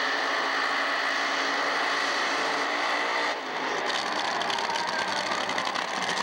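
A pair of nitro funny cars' supercharged Hemi V8 engines at full throttle. First comes a burnout, then after about three and a half seconds the sound changes to the cars' run down the drag strip, a loud, rapid, crackling engine rattle.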